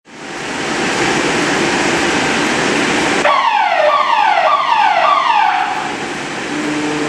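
A loud steady hiss, then about three seconds in a warning alarm sounds a rapid series of falling tones, about two a second, for a couple of seconds before stopping.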